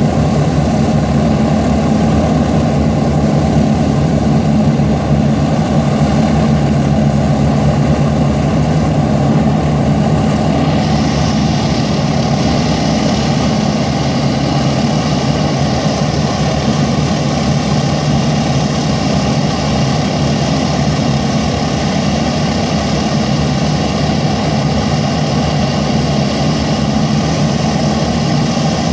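Avro Shackleton MR3's Rolls-Royce Griffon V12 piston engines running steadily on a ground run, with a deep, even drone from the engines and contra-rotating propellers. A higher hiss joins about eleven seconds in.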